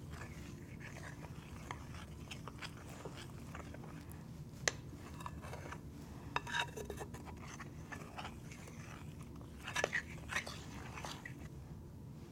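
A spoon stirring thick, half-cooked fudge mixture in a bowl: faint scraping with scattered clicks of the spoon against the bowl, a few sharper ones around the middle and near the end.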